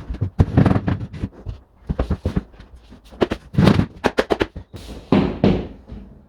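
Plasterboard sheet being handled and set against the wall: an irregular run of knocks, bumps and scrapes, heaviest about half a second in, around three and a half seconds in and near five seconds.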